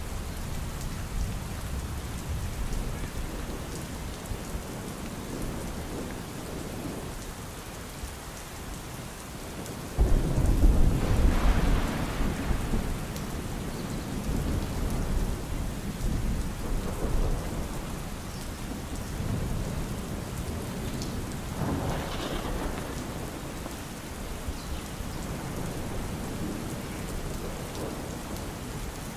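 Steady rain with thunder. A loud thunderclap breaks in suddenly about a third of the way through and rumbles for a few seconds, and a fainter roll of thunder comes about two-thirds of the way in.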